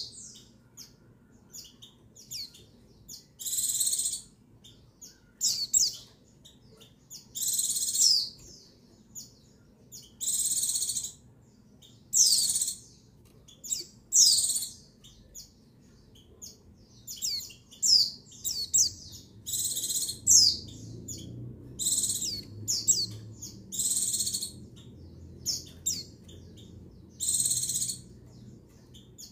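White-eye (pleci) calling over and over: short, high chirps with quick pitch sweeps and some harsher, buzzier notes, one every second or two. This is the female call, which keepers play to rouse male white-eyes into singing.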